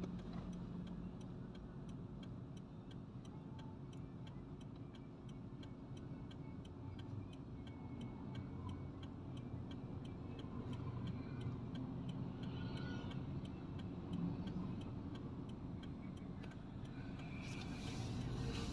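Taxi cabin: low, steady engine and road rumble, with a quick, even ticking, about two and a half ticks a second, throughout.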